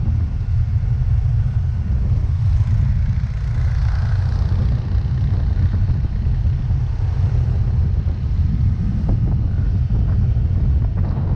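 Steady low rumble of wind buffeting the microphone on a moving Yamaha Mio Gravis scooter, mixed with its engine and road noise.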